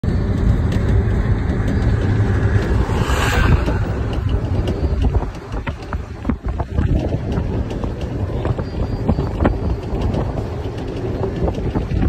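Wind rushing past a moving vehicle and buffeting the phone's microphone, over a low road rumble. It eases briefly around the middle.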